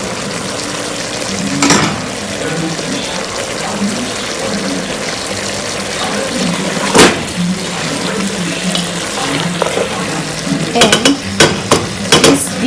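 Cassava in sauce sizzling steadily in a frying pan while a wooden spoon stirs in chopped coriander, knocking against the pan a few times: the loudest knock comes about seven seconds in, and a quick run of knocks comes near the end.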